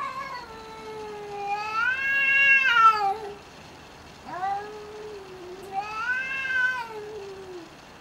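Cats yowling at each other in a standoff: two long, wavering threat yowls. The first runs about three seconds, growing louder and higher before dropping. The second starts about four seconds in, swells again and falls away.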